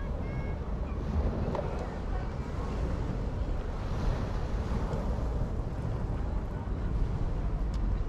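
Sea waves washing on the shore, with wind buffeting the microphone as a steady low rumble.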